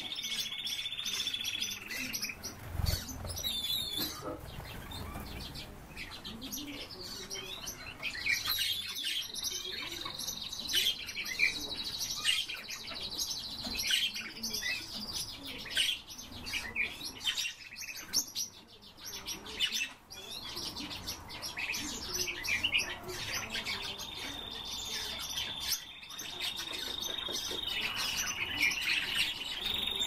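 A room of many caged songbirds chirping and calling together, with long, steady high notes held for several seconds at a time, near the start, through the middle and again near the end.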